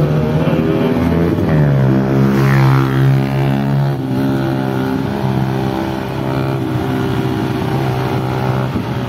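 Engine of a moving road vehicle running, revving up about a second and a half in and then holding a fairly steady pitch, with other traffic on the road around it.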